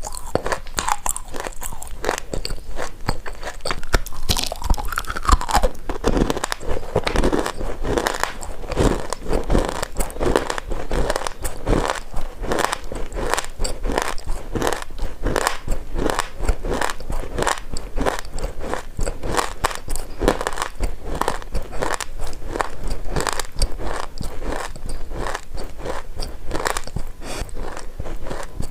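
A person biting and chewing pieces of baked loess subsoil, a steady run of crisp crunches, a few each second.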